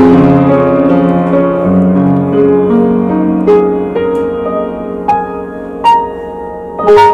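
Piano played slowly. Held chords ring and fade away, then single notes are struck a second or so apart, with a louder chord near the end.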